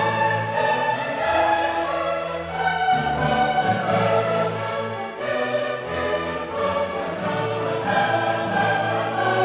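Background classical music: a choir singing with an orchestra, in long held chords that change every second or so.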